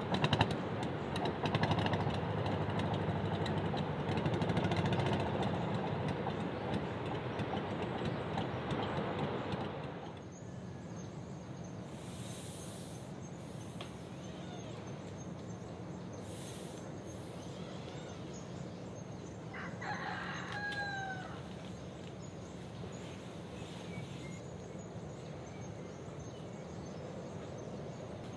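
A rooster crowing once, about two thirds of the way in, over quiet morning background with a faint high steady insect tone. Before that, a louder steady rumbling noise runs for the first ten seconds and drops away suddenly.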